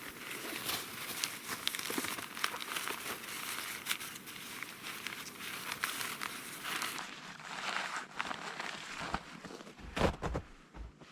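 Footsteps crunching through snow, a dense run of small crackling crunches mixed with crinkly rustling, and one heavier thump near the end.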